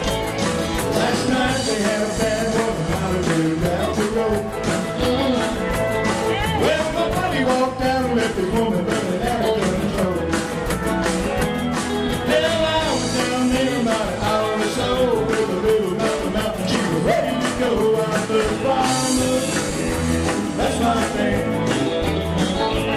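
Live country-rock band playing with drums, electric guitar and keyboard, a steady beat throughout.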